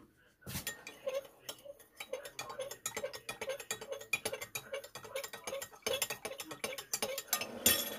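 Metal spoon stirring pomegranate juice and molasses in a glass Pyrex measuring cup, clinking against the glass about three to four times a second, each clink with a short ring. The loudest clinks come near the end.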